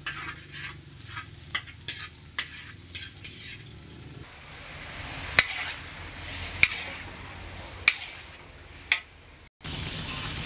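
Chopped garlic and onion sizzling in a hot wok, scraped and stirred with a metal spatula. Then chicken pieces are stirred in the wok, with the spatula knocking sharply against the wok about once a second.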